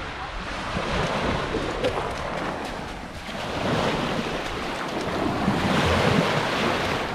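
Small waves breaking and washing up over the shingle at the water's edge, swelling twice, the second surge the loudest, about six seconds in.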